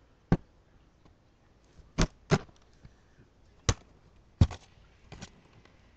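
Scissors snipping while cutting open a box, a series of sharp, separate clicks, about seven in all, some in quick pairs.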